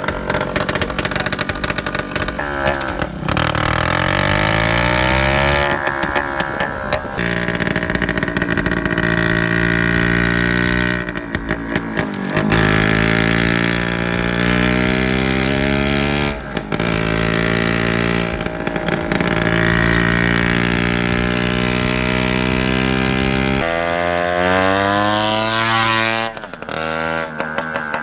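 A 150 cc scooter engine running loud through an open dholki exhaust with no silencer, ridden hard. Its pitch climbs again and again as it accelerates, falling back between each run.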